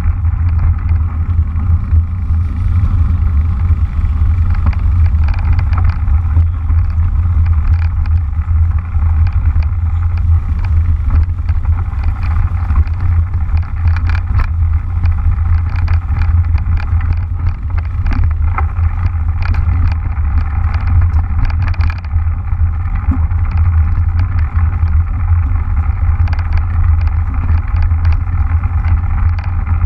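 Riding noise picked up by a camera on a moving mountain bike: a steady low rumble of wind buffeting and tyres rolling over a leaf-covered dirt trail, with scattered clicks and rattles from bumps.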